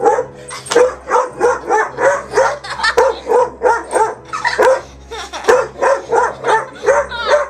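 Dog barking over and over at a toy dinosaur, short sharp barks about three a second.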